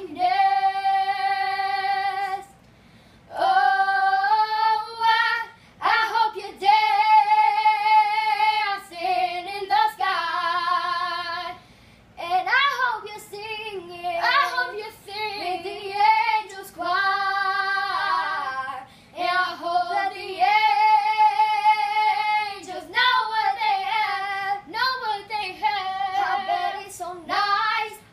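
Two young girls singing a slow ballad together without accompaniment, holding long notes with vibrato and pausing briefly for breath between phrases.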